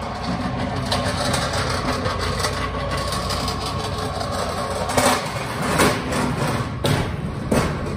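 Empty manual pallet jack rolling and rattling across a concrete warehouse floor, with four loud metal clanks in the last three seconds as its wheels cross the dock plate and truck floor.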